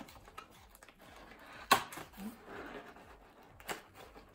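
Cardboard box being opened by hand: rustling and scraping of the lid and tabs, with a sharp snap nearly two seconds in and a smaller one near the end.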